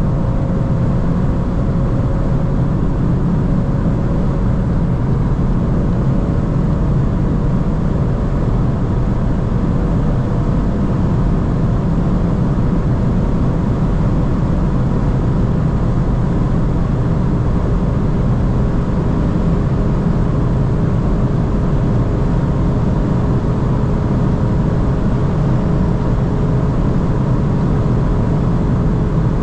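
Volkswagen Golf 8 R Performance at sustained high speed: the 2.0-litre turbocharged four-cylinder's steady drone mixed with heavy wind and tyre noise, its pitch easing slightly lower.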